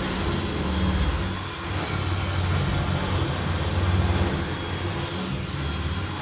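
Electric drill with a metal drill bit running steadily under load, boring into a filing cabinet's lock cylinder; its level wavers a little as it cuts.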